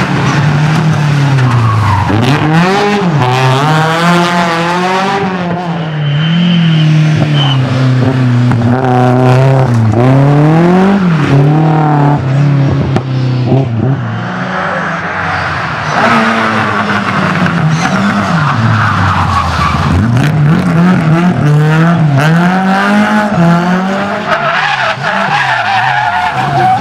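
Rally cars driving flat out past the spectators one after another. Their engines rev up and fall back again and again as they change gear and brake for corners.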